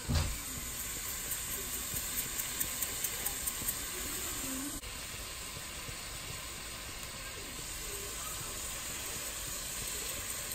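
Steady sizzling hiss of a stainless pot of chopped carrots, celery and onion cooking on a gas stove. There is a thump right at the start and a run of light ticks about two to four seconds in.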